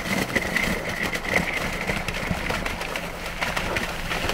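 Rosomakha ATV driving into a puddle covered with thin ice: its big tyres crack and crunch through the ice and slosh the water, over the running engine. A steady high whine sounds through the first couple of seconds.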